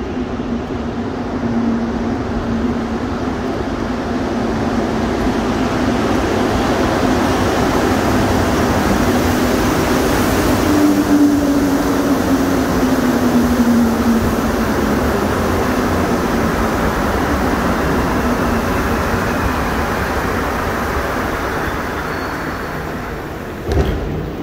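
Rubber-tyred Montreal Metro train pulling into the station, a steady rumble and hiss with a motor tone that falls in pitch as the train slows. Near the end there is a single sharp knock.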